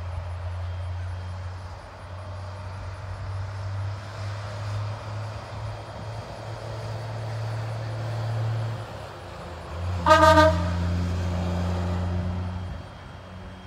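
Steam whistle of a 1928 coal-burning 0-4-0 tank locomotive giving one short, high blast about ten seconds in, over a steady low rumble.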